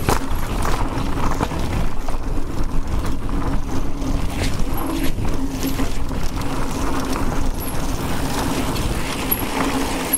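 Electric mountain bike riding along a trail: tyres rolling, the bike rattling over rough ground and wind on the mic, with the hum of the electric drive motor coming and going.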